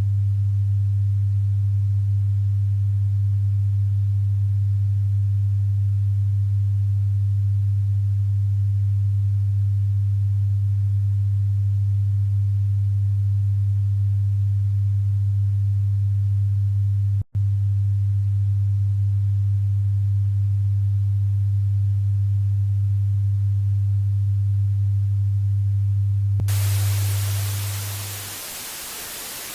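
A steady low electronic tone, one pitch held on and on, with a split-second dropout about seventeen seconds in. Near the end the tone fades out and loud even static hiss takes over, a dead broadcast channel.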